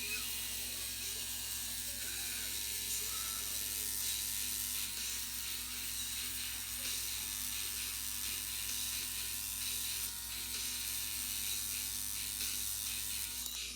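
Electric tattoo machine buzzing steadily, switching on suddenly and cutting off just before the end.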